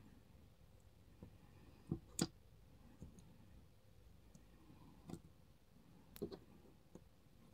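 A handful of faint, separate clicks of small lock pins and springs being set down and arranged on a surface. The sharpest click comes about two seconds in, with a few more near the end.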